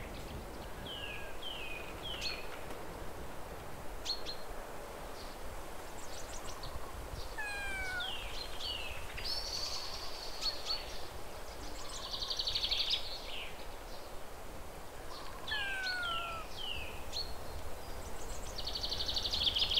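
Birdsong over steady background noise: repeated short falling chirps, a few sliding whistles and bursts of rapid trills, the trills loudest about a third of the way in and again near the end.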